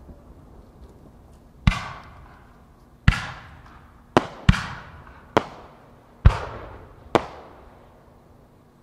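Fireworks going off: seven sharp booms at uneven intervals of roughly a second, each trailing off in a long echo.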